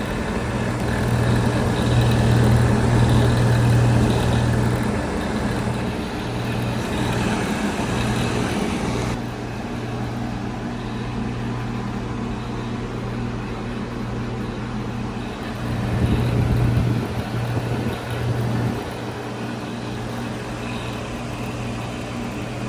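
Outdoor heat pump units running in heat mode, their coils frosted up: a steady compressor hum with the rush of the condenser fan's airflow. The airflow rush drops off about nine seconds in, and the hum swells again briefly around sixteen seconds.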